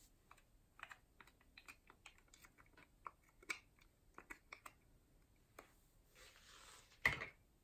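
Thin plastic cup crackling and clicking in the hand as thick green glitter glue is scraped out of it with a stick, a quick irregular run of small clicks. Near the end comes a short soft hiss, then one sharp click, the loudest sound.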